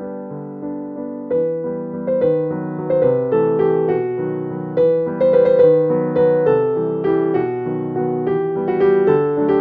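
Background music: a keyboard playing a gentle melody over chords, each note struck and then fading.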